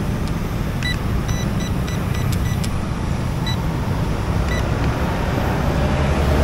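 A string of short electronic beeps, about a dozen in the first two thirds, as the trim on a toy drone's remote controller is adjusted, over a steady rumble of road traffic. A faint steady tone comes in near the end.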